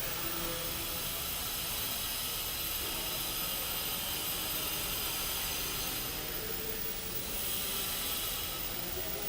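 Steady hissing noise with faint steady tones in it, dipping slightly about seven seconds in.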